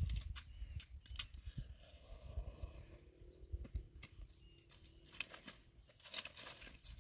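Dry twigs being handled and set alight in a makeshift tin stove: scattered small clicks and snaps, coming thicker near the end as the kindling catches, over a low rumble.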